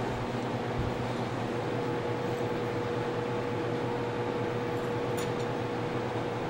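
Steady background hum and hiss of a room, with a faint constant tone and a soft knock about a second in.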